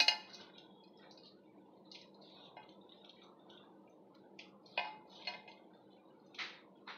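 Hands rubbing a crumbly flour, sugar and ghee mixture by hand in a stainless steel bowl, with a few short clinks and scrapes against the steel, mostly in the second half.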